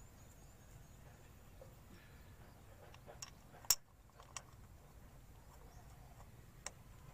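A few faint metal clicks and taps as the oil filter cover is seated on a Bajaj Platina's engine case and its bolts are started by hand, the sharpest click about three and a half seconds in.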